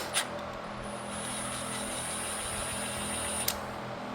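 Cordless impact driver with a 5/16 socket run gently to back out a screw on the timer, with a steady high-pitched whine for about three seconds that ends in a click. A low steady hum sits underneath.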